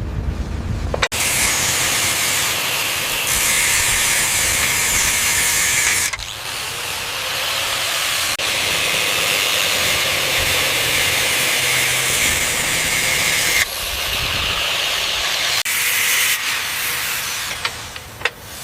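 Loud, steady hissing noise with most of its energy high in pitch. It starts suddenly about a second in and shifts abruptly several times.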